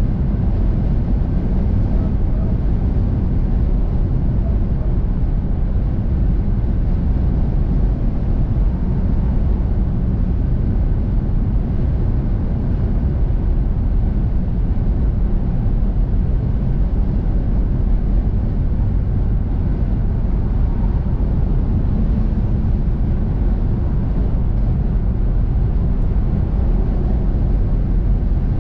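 Steady engine and tyre noise of a car cruising on a motorway at constant speed. It is a deep, even noise that does not change.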